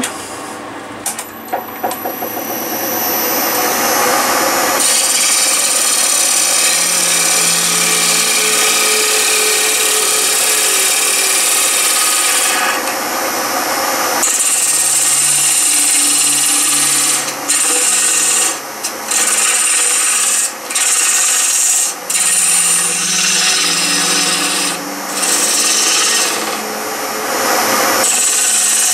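A spinning ash blank on a wood lathe being cut with a hand-held turning tool: a steady hiss of shavings peeling off. It builds over the first few seconds as the cut starts, and breaks off several times in the second half where the tool lifts away briefly.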